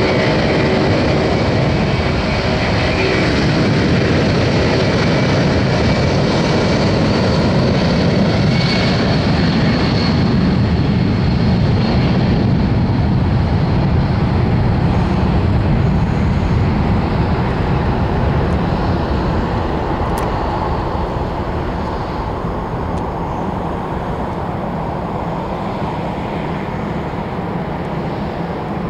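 Boeing 757-200's Pratt & Whitney PW2000-series turbofans at takeoff thrust: a loud, steady jet roar with a faint high whine on top. The roar fades over roughly the last ten seconds as the aircraft moves off down the runway and lifts off.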